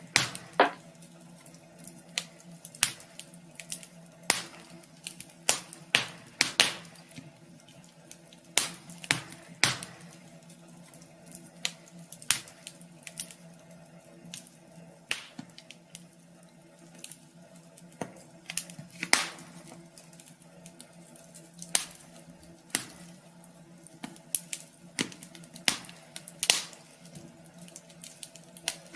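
Wood fire crackling in a wood stove: irregular sharp snaps and pops, one or two a second at uneven spacing, over a steady low hum.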